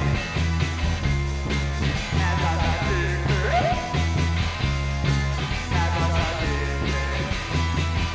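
Live rock band playing: electric guitar, electric bass and drum kit, with a singer's voice over them.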